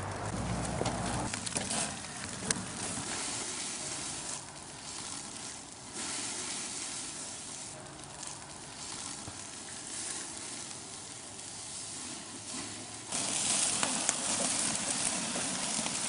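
Hamburger patties sizzling on a barbecue grill: a steady frying hiss with scattered small pops. It steps louder about thirteen seconds in.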